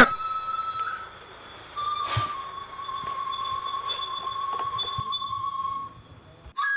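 Crickets chirping at night, a steady high-pitched trill, over a soft sustained tone that steps down in pitch about two seconds in.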